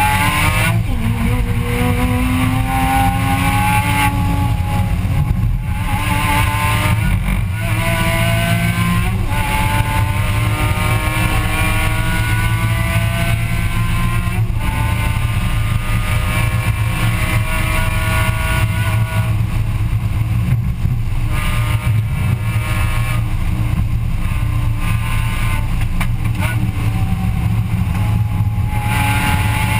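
Porsche Cayman race car's flat-six engine at full throttle, heard from inside the cockpit. The revs climb and drop sharply at each upshift, then rise in one long pull in a high gear, broken by a couple of brief lifts off the throttle later on.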